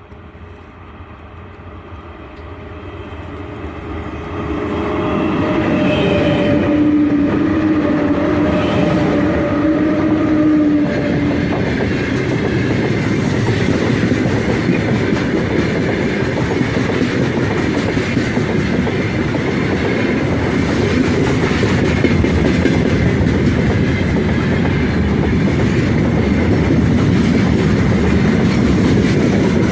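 Freight train behind a four-section 2ES5K Ermak electric locomotive approaching and passing close by. The sound builds over the first few seconds, and a steady humming tone holds for several seconds as the locomotives go by. After that the wagons roll past with a steady clickety-clack of wheels on the rails.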